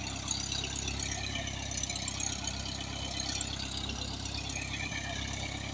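Cessna 172 Skyhawk SP's four-cylinder Lycoming piston engine idling steadily on the ground.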